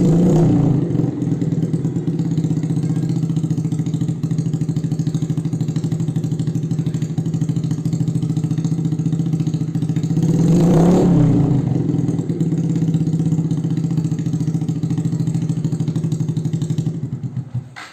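Suzuki Shogun Axelo R's single-cylinder four-stroke engine idling through an aftermarket X1 Speed Racing slip-on silencer. The throttle is blipped twice, once at the start and once about eleven seconds in, each time rising and falling back to idle. The sound cuts off just before the end.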